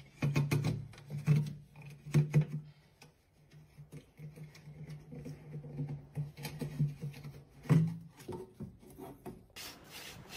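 A cat rubbing against a vacuum cleaner's ribbed hose: repeated soft rubbing and scraping strokes over a low, steady hum, with a few knocks near the end.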